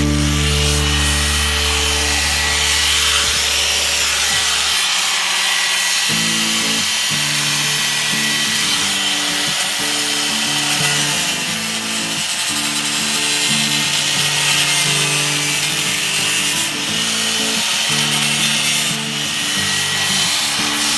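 Background music with a changing bass line, over the continuous noise of a power tool running steadily on the car's rusted sheet-metal bodywork.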